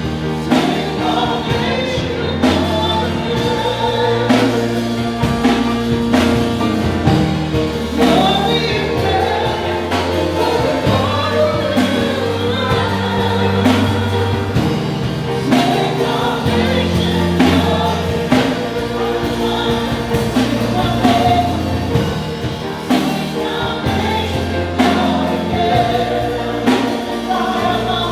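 Congregation or church choir singing a gospel hymn with a band, with drums keeping a steady beat.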